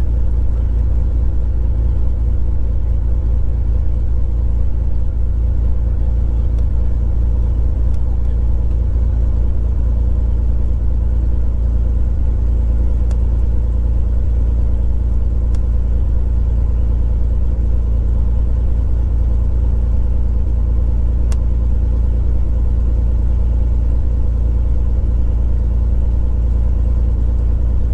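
Single-engine piston aircraft engine and propeller running at a steady speed, heard inside the cockpit, with a constant low drone.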